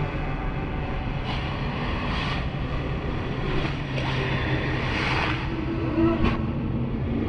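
Layered horror sound-effect ambience: a steady low rumble under gusts of hissing wind that swell and fade every second or so, with a faint creak and a sharp tick about six seconds in.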